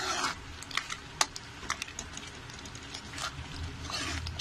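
Metal spoon stirring thick tomato gravy in a pan, with irregular clicks and taps of the spoon against the pan and a few short scraping strokes.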